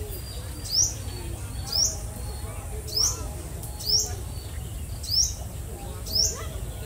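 A bird calling over and over: a short, sharp chirp that sweeps upward, about once a second, six times, over a low steady rumble.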